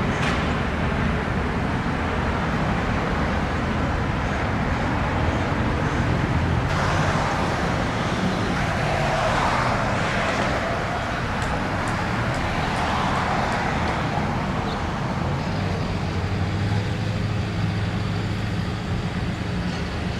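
Road traffic going past: a steady rumble of cars, with louder swells as vehicles pass in the middle, and a heavier engine hum near the end.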